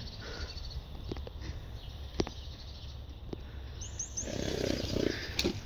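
Horse blowing a noisy breath out through its nostrils about four seconds in, lasting around a second, over a low rumble. A few faint bird chirps sound just before it.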